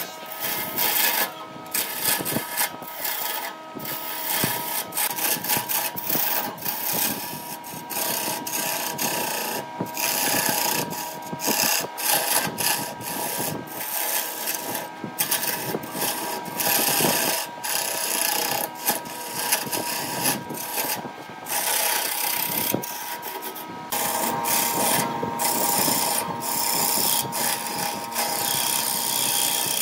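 Lathe chisel cutting into a spinning wooden blank: continuous rough scraping that rises and falls unevenly as the tool bites, over a thin steady whine from the lathe, which becomes stronger near the end.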